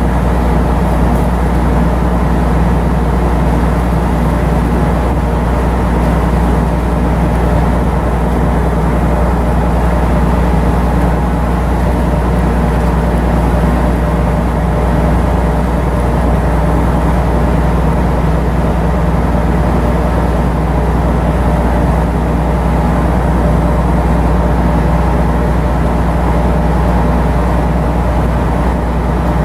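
Marine diesel engine running steadily, a loud, even drone that does not change.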